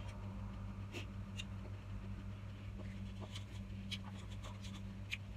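Scattered soft clicks and small rustles of eating and of fingers picking food out of plastic bowls, over a steady low hum.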